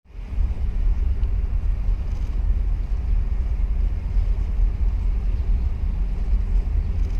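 A boat's engine running with a steady low rumble, heard on board.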